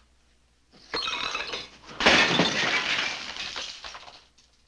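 Dishes smashing and shattering: one crash about a second in, then a louder crash of breaking crockery a second later that clatters and dies away.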